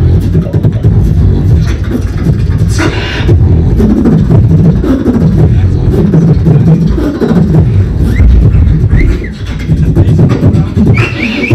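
Live beatboxing into a cupped handheld microphone over a PA: a dense, deep bass pattern with sharp snare-like clicks in a steady rhythm. About three seconds in there is a brief higher whistle-like sound, short rising chirps come around eight to nine seconds, and a high held tone begins near the end.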